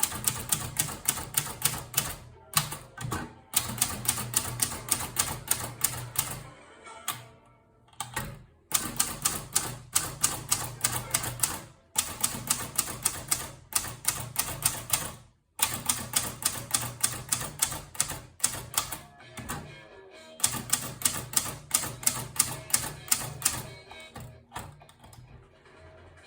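Hermes Baby portable typewriter being typed on: quick keystrokes at several a second, in runs broken by short pauses.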